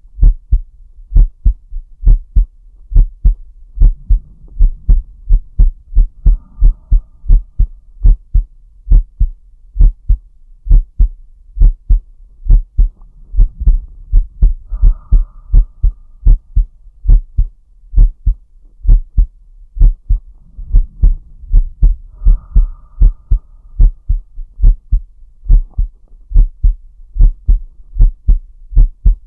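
A man's heartbeat recorded close: a steady run of low lub-dub thumps. Three slow, deep breaths come roughly eight seconds apart, each a soft low rush followed by a higher hiss; the heart rate rises and falls with the breathing (respiratory sinus arrhythmia).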